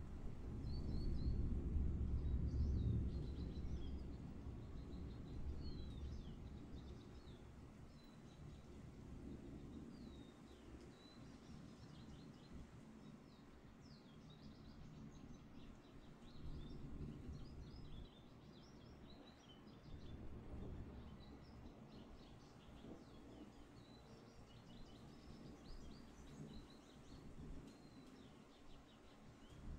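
Thunder rumbling low, loudest in the first few seconds, then dying down to a faint rolling with small swells. Many short high chirps sound throughout.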